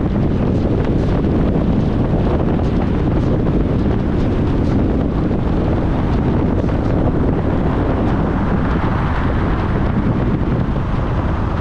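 A car driving along: a steady, loud rumble of road and engine noise with wind noise over it, its hiss swelling a little near the end.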